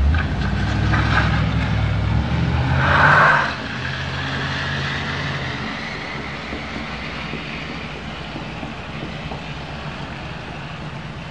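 A motor vehicle passing close by on a street, its engine loudest for the first three and a half seconds and then dropping away. A steady low hum is left behind.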